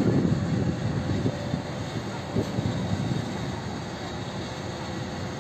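Propeller aircraft engines running with a low, steady drone that slowly grows quieter.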